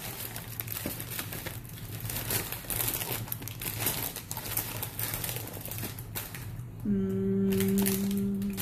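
Plastic snack wrappers and packets crinkling and rustling as hands rummage through a box of packaged snacks. Near the end a person hums a steady note for under two seconds.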